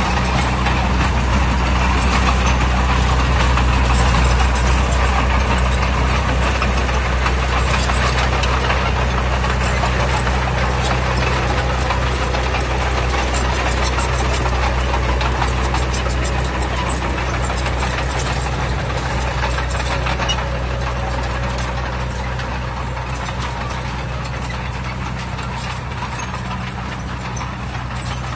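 Heavy earthmoving machine's diesel engine running steadily with a low hum, under a dense rattle of rapid clicks through the middle; the sound eases slightly near the end.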